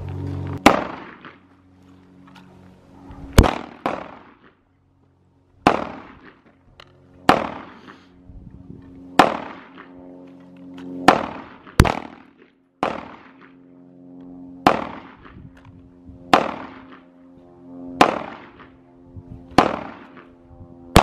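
Glock 19 9mm pistol firing about a dozen single shots at an even, unhurried pace, roughly one and a half to two seconds apart, with a couple of quicker pairs; each shot rings out briefly.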